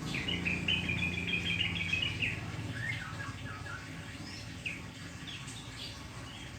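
Crocokan (common iora) singing: a quick run of bright chirping notes, then a lower phrase and scattered short calls. Its song is filled with mimicked murai and sparrow phrases. A steady low hum runs underneath.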